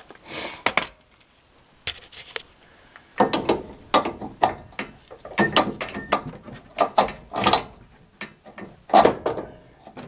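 Rapid metallic clicks, clanks and rattles as an old front shock absorber is worked loose from its lower fork mount on a truck's control arm, starting about three seconds in.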